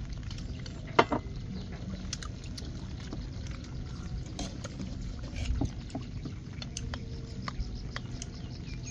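People eating soup from bowls with chopsticks: a sharp clink of utensil on bowl about a second in, then scattered lighter clinks and slurps, over a steady low rumble.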